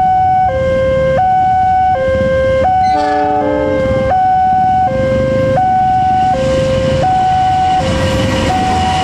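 Two-tone level-crossing warning alarm going high-low-high-low, each tone about three-quarters of a second, over the rumble of a passing diesel freight train, with a brief chord of other tones about three seconds in.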